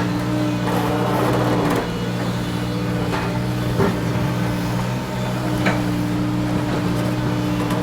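Heavy-machinery diesel engine running at a steady speed, with a few sharp knocks scattered through it.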